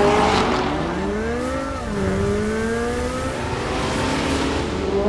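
Chevrolet Corvette Z06's LT6 V8 engine accelerating hard, its pitch climbing, dropping sharply about two seconds in at an upshift, then climbing again.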